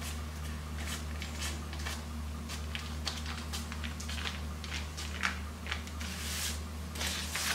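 Hands rolling a sheet of puff pastry spread with pesto on parchment paper: soft, scattered rustles and squishes of the paper and dough, over a steady low hum.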